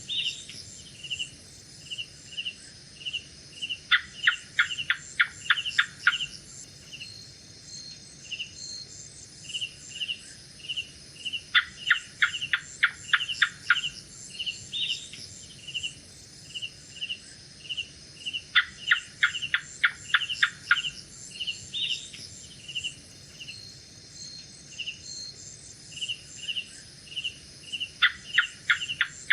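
Gecko calling in bursts of rapid clicking chirps, about eight notes in two seconds, four times. Under it runs a steady chorus of night insects and a short high chirp repeating about twice a second.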